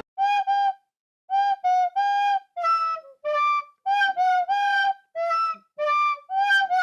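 Background music: a solo flute-like melody of short, separate notes, about a dozen in a hopping phrase, with clean silences between them.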